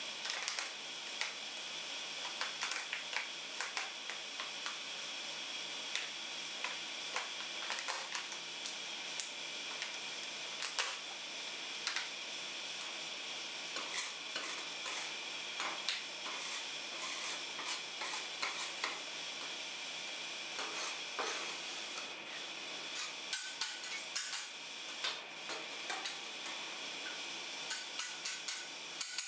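Handling noise on a frosted steel ice-cream cold plate: a metal spatula scraping and tapping across the frozen surface, and a clear plastic clamshell box crinkling and clicking as it is opened and set down. Many short scrapes and clicks over a steady hiss.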